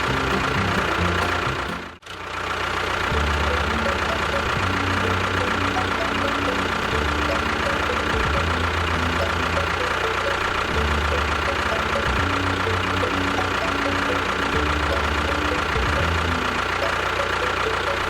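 Steady engine-like running sound with a constant high whine over changing low tones, cutting out sharply for an instant about two seconds in.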